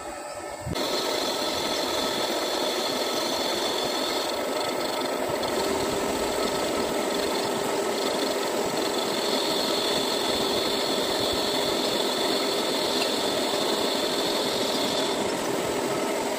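Metal lathe starting about a second in and turning a metal-sprayed excavator final drive hub, running steadily with a high whine that fades for a few seconds midway, during the final finishing cut on its aluminium bronze coating.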